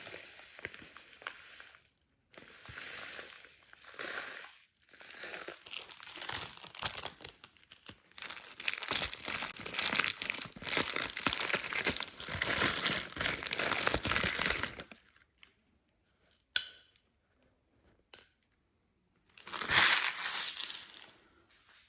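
Coarse bath salts being poured out of a plastic packet into a container: a grainy, hissing rattle of crystals with crinkling of the packet. It stops about 15 s in, with a few small clicks, then a second short pour near the end.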